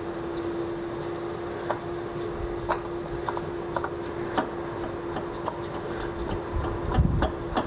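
A new Fram PH7575 spin-on oil filter being turned by hand onto its threaded mount: light scattered clicks and rubbing. A steady hum runs underneath.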